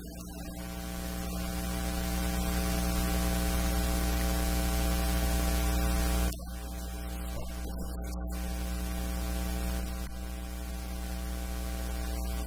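Electrical mains hum with hiss on the audio feed: a steady buzz of many evenly spaced tones. It swells over the first couple of seconds, then drops suddenly in level about six seconds in and carries on more quietly.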